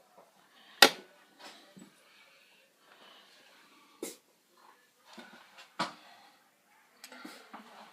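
A few sharp knocks or clicks on something hard, the first about a second in and the loudest, two more near the middle, with soft scuffing and rustling between them.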